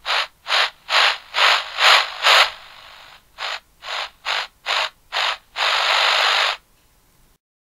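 Handheld radio static pulsing in short bursts of hiss, about three a second, with a brief drop to faint hiss partway through. A longer burst near the end, then it cuts off to silence.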